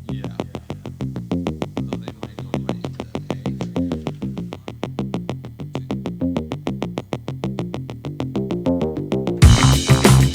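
Electronic background music: a synthesizer line over a fast, steady drum-machine beat, growing fuller and louder about nine seconds in.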